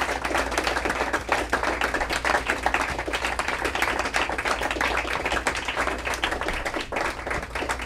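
Applause from a small audience, separate hand claps heard in a dense irregular run, easing slightly near the end.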